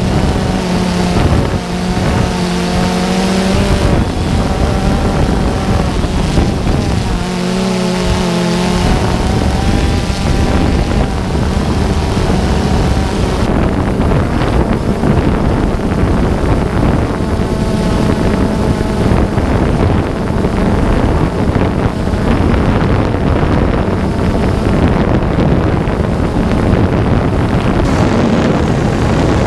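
Small camera drone's electric motors and propellers whirring steadily over wind noise, the motor whine shifting in pitch several times as it flies.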